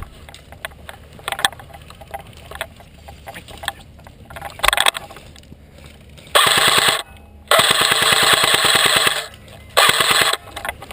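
Airsoft electric rifle, a Lancer Tactical PDW, firing on full auto in three bursts: a short one, a longer one of about a second and a half, and another short one, each a rapid, even rattle of shots.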